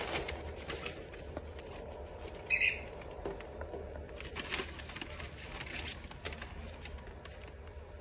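A white cockatoo rustling and crinkling sheets of paper with its beak, in scattered bursts, with one short, sharper sound about two and a half seconds in.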